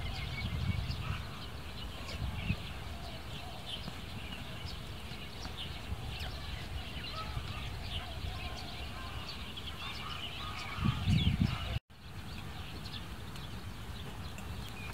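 Small birds chirping in short, repeated calls, with low rumbling bursts near the start and again just before a brief dropout about twelve seconds in.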